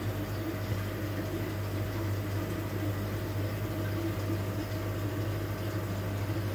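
Steady low hum of an aquarium air pump, with the bubbling of an air-driven sponge filter in the tank.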